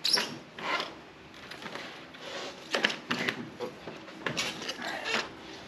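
Rubber snowmobile track and the metal rear suspension skid of a 2002 Polaris XC 500 being wrestled into place by hand: irregular scraping and rubbing with a few light knocks as the skid is worked into the track.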